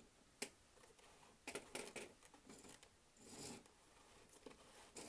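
Quiet clicks and a short whirr, about three seconds in, from a 1963 Fleischmann H0 model locomotive chassis being test-run by hand on the track. Its small electric motor is only just turning, which the owner takes as a need for oiling.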